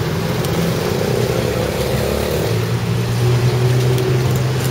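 Street traffic: a motor vehicle's engine running close by, a steady low hum over road noise.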